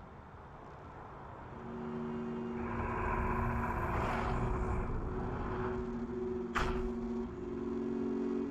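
Low sustained drone of two steady tones over a deep rumble from the anime's soundtrack, swelling in level from a couple of seconds in. The tones shift to new pitches near the end, with a short sharp hit shortly before.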